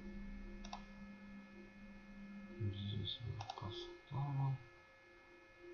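A man's drawn-out hum of hesitation, then a couple of short murmured sounds, while computer clicks come about a second in and again around three and a half seconds in. A faint steady electrical whine lies underneath.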